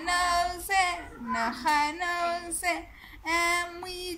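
A young girl singing unaccompanied: a string of held, level notes with short breaks between them.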